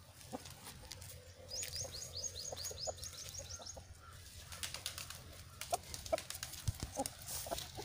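A small bird gives a quick run of about a dozen high chirps, about five a second, lasting a couple of seconds. Scattered dry crackles and taps, like steps on dry leaves and twigs, are loudest near the end.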